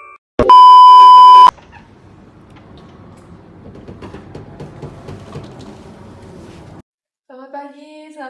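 A loud, steady electronic beep lasting about a second, followed by faint room noise with small clicks. A person's voice starts near the end.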